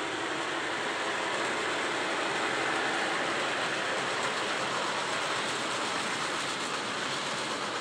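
Gauge 1 model freight train running past on the garden track: the wheels of a string of container wagons rolling on the metal rails make a steady running noise, a little louder around the middle as the wagons pass closest.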